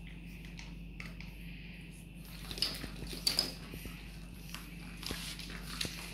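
A Boston terrier puppy's claws ticking on a tile floor as it walks: a few light, scattered clicks over a steady low hum, the sharpest a little after halfway through.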